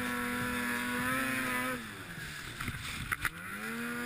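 Ski-Doo snowmobile engine held at high revs while the sled pushes through deep powder, then falling off about two seconds in, with a few sharp clicks, before revving up again near the end.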